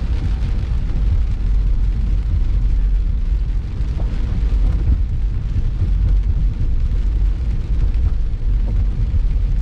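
Steady low rumble of a car driving on a rain-soaked road, heard inside the cabin, with an even hiss of tyres on the wet surface and rain on the car.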